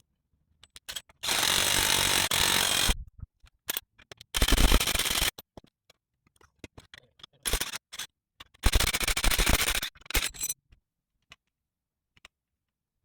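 Rattle gun (impact wrench) running in several short bursts, the longest nearly two seconds, tightening the spring compressors or strut nuts on a front strut and coil spring assembly.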